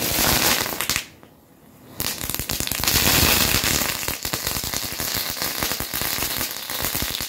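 Red and green crackling fireworks burning together as a homemade ground 'flower': a dense run of rapid, irregular crackles, with a brief lull about a second in.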